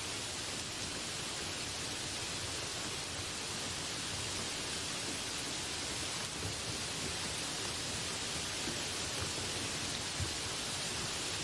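Heavy rain pouring steadily onto banana plants and tree leaves, an even, unbroken hiss.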